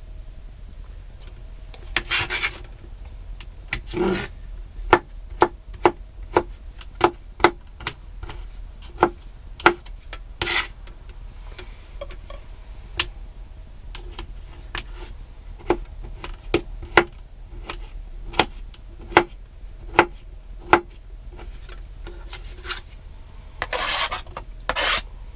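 Kitchen knife chopping parboiled broccoli on a cutting board, sharp knocks at about two a second. Near the end, the chopped vegetables are scraped off the board into a wooden bowl.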